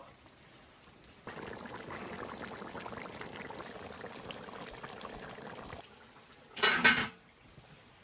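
Rabbit and vegetable stew bubbling at a boil in a large cauldron, a steady crackling burble of many small pops. Near the end it cuts off, and a brief loud clatter follows.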